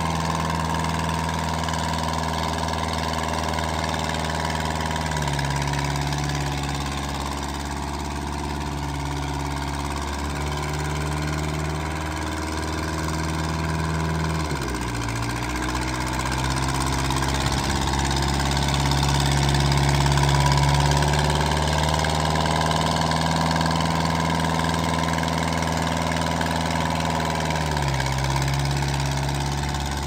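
John Deere 210 backhoe loader's engine running steadily at low speed as the machine is driven. Its pitch shifts a few times and dips briefly about halfway through.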